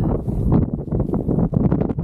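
Loud wind buffeting the pilot's camera microphone in flight under a paraglider, an uneven flutter with no steady tone.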